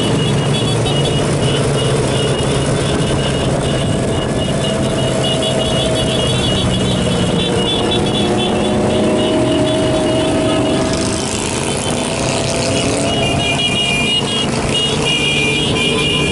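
Motorcycle engines running in traffic, a steady mix of engine and road noise, with a hiss for about two seconds roughly two-thirds of the way through.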